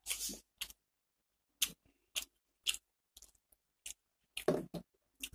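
Close-up crunching as a person chews crisp fried onion pakora: a string of short, sharp crunches about every half second, the loudest cluster near the end.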